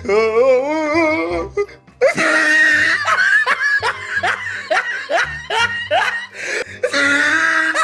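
Laughter in short repeated bursts over background music.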